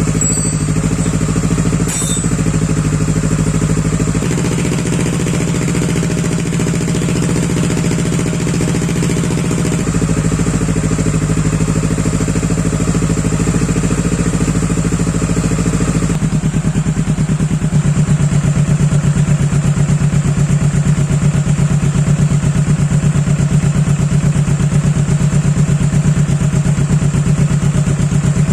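Motorcycle engine idling through its exhaust, a steady low note. About 16 s in the sound changes to a more distinctly pulsing, slightly louder idle.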